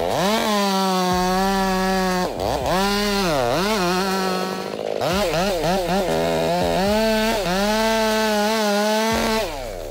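Two-stroke chainsaw running at high revs while cutting wood. Its engine note sags and recovers several times, then winds down near the end.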